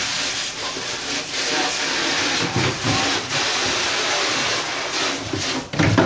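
Steady rushing hiss of spraying water at a commercial dishwashing station.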